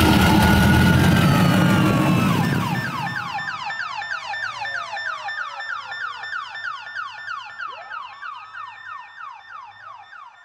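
A vehicle's engine runs loud and close for the first couple of seconds, then a police siren with a rapid yelp of about three falling sweeps a second, over a slower wail, fades away into the distance.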